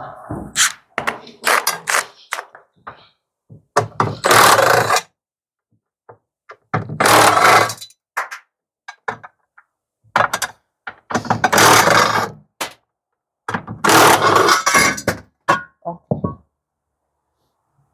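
Metal parts of a washing machine being worked loose with hand tools during dismantling: four loud scraping, rattling bursts of about a second each, with scattered knocks and clunks between them.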